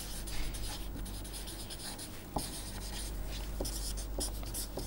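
Felt-tip marker writing on paper: a run of short scratchy strokes as words are written by hand, with a few light clicks of the tip touching down.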